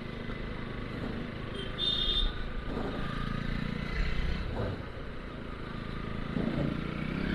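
Bajaj Pulsar NS200 single-cylinder engine running under the rider, its note rising and falling with the throttle over road and wind noise. A short high-pitched beep sounds about two seconds in.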